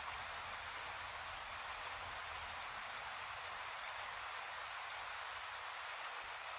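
Steady rush of water pouring over a low river waterfall and through the riffles below it, an even hiss without any change.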